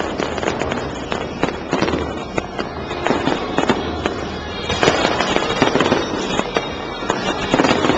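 Fireworks going off in quick succession: sharp bangs and crackles, thickening into dense crackling about five seconds in and again near the end.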